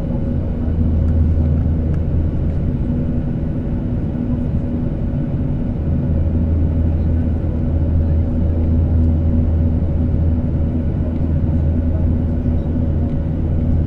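Cabin noise of a Boeing 737-800 heard from a window seat over the wing while climbing out: the steady drone of its CFM56-7B turbofan engines and rushing air, with a deep hum and a faint steady whine above it.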